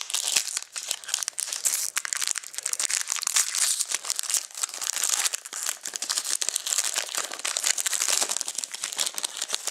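Plastic wrapping on a trading-card box and pack being crinkled and torn open, a steady run of crackling.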